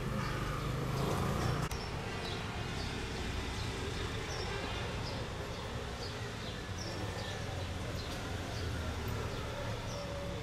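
Outdoor background of a steady low hum of distant traffic, a little louder for the first second and a half, with short high chirps of small birds repeating every half second or so.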